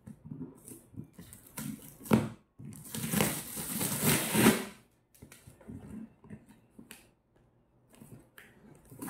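Cardboard box being torn open by hand: tape and cardboard flaps picked at, scraped and ripped, with a sharp snap about two seconds in and a longer stretch of tearing from about three to five seconds, then fainter scratching.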